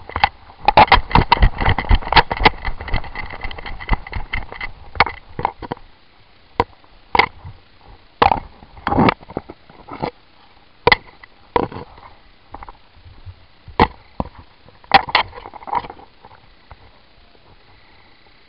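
Footsteps and gear of an airsoft player on the move: dense clattering and thumps for the first five seconds or so, then single sharp footfalls about once a second, stopping a couple of seconds before the end.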